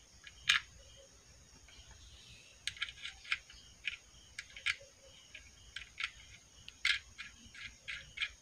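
Small metal clicks and ticks of a washer and nut being handled and threaded onto a bolt set in a wooden frame: one sharp click about half a second in, then irregular clicks, roughly one or two a second, from a little under three seconds in.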